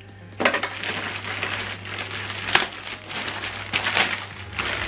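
Packaging being handled: paper and plastic rustling with scattered knocks, one sharp knock about two and a half seconds in.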